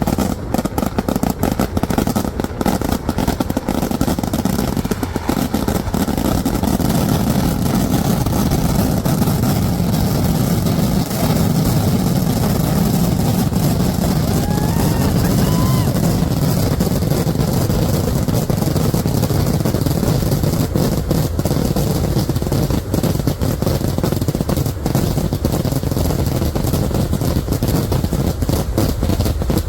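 A dense barrage of firecrackers going off so fast that the bangs merge into one continuous loud crackle, as in the massed finale of a Kerala vedikettu.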